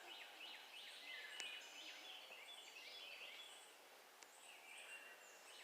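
Faint birdsong, many short chirping notes, some falling in pitch, with the low hum of a distant string trimmer underneath.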